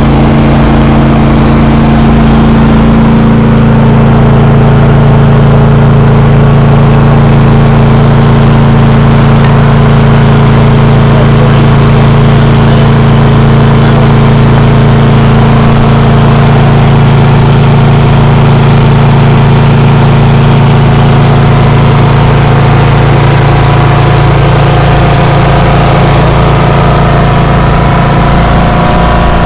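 Portable generator engine running steadily, powering the watermaker, with a slight change in its tone about three seconds in.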